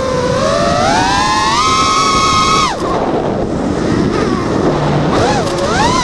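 FPV quadcopter's brushless motors whining, heard from the onboard camera. The pitch climbs steadily for over two seconds, then cuts off abruptly as the throttle drops during a roll, leaving a rush of wind. The whine sweeps back up near the end.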